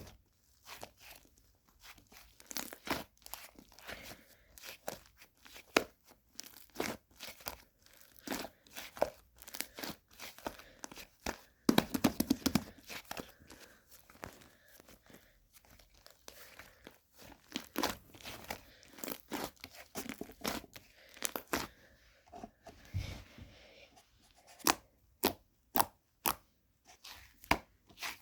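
Slime being squeezed, pressed and stretched by hand, making a long run of crackling, popping clicks and tearing sounds. There is a louder burst about twelve seconds in, and a row of sharp pops near the end.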